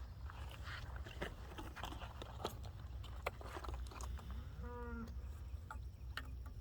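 A cow moos once, briefly, about four and a half seconds in, over a low steady rumble and a few small clicks.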